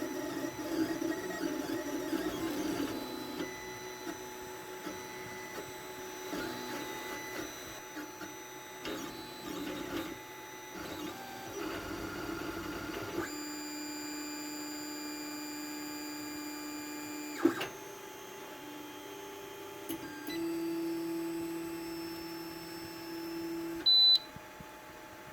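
Stepper motors of an Anycubic i3 Mega 3D printer, converted to a pen plotter, whining at shifting pitches as the head and bed move, with some longer steady stretches. There is a sharp click about two thirds of the way in and a short high beep near the end.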